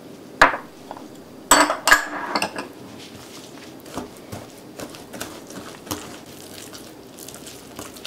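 Metal wire whisk clinking and scraping against a glass mixing bowl while it stirs a thick mashed sweet potato mixture. A few sharp clinks come in the first two seconds, then lighter, irregular taps follow.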